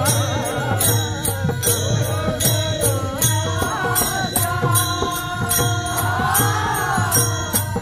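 Marathi devotional kirtan singing: one voice holds long, ornamented notes over a steady beat of small hand cymbals and a low drum.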